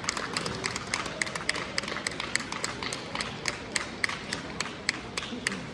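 Handclapping in a steady rhythm, about three or four sharp claps a second, stopping near the end.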